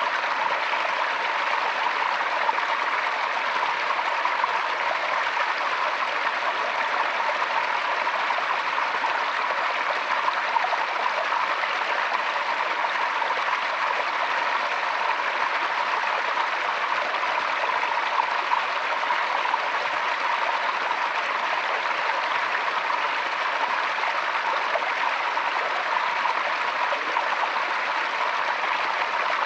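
Forest stream flowing steadily over stones, a continuous even babbling rush of water.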